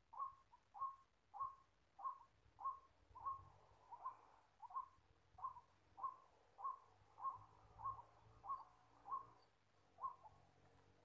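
White-breasted waterhen calling: a monotonous series of short, even calls, about three every two seconds.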